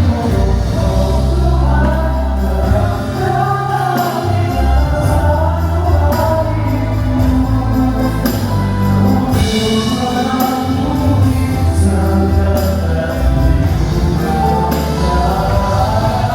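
A band playing a song with several voices singing together, over sustained bass notes and regular drum hits.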